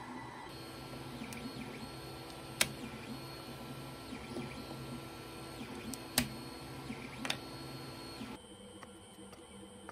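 Ender 3 3D printer's fans humming steadily with a faint whine, while printed plastic gears are lifted off the bed with pliers, giving a few sharp clicks and knocks, the loudest about two and a half and six seconds in. Near the end the hum drops and changes.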